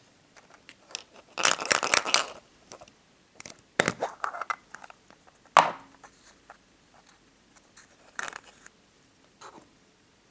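A hard plastic surprise-egg capsule and the small plastic toy inside it being handled: bouts of scraping and crackling plastic, with one sharp snap about halfway through as the capsule comes open, and lighter clicks and scrapes later on as the toy is handled.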